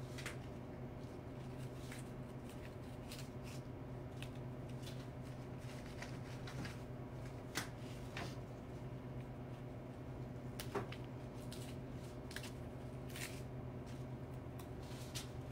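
Flower stems and foliage being handled and trimmed with a knife as hypericum berry stems are worked into an arrangement: light rustles and small clicks, with two sharper taps about 7.5 and 11 seconds in, over a steady low hum.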